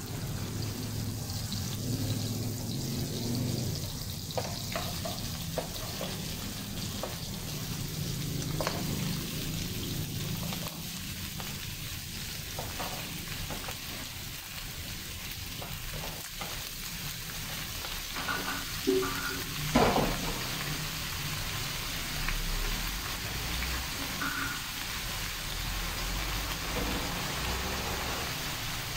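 Onions and tomatoes sizzling in oil in a nonstick wok as they are sautéed, with chunks of boiled beef ladled in on top. A few short clinks and knocks of the ladle against the bowl and pan, the loudest about two-thirds of the way through.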